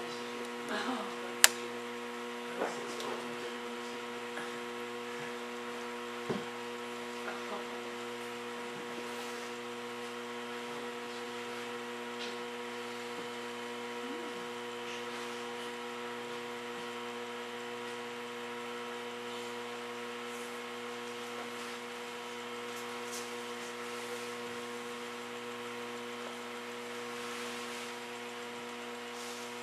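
Steady electrical hum made of several even tones, with a few short soft knocks in the first seconds and one about six seconds in.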